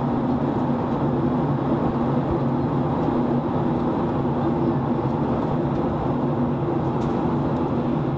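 Steady airliner cabin noise: jet engine drone and rushing airflow, with a low hum under it.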